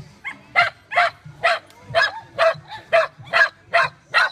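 A dog barking in a steady run of about nine sharp barks, roughly two a second, evenly spaced.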